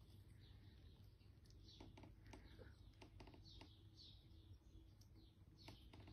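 Cats chewing cat grass: faint, crisp clicks, several a second. Small birds chirping throughout, in quick high notes that slide down in pitch.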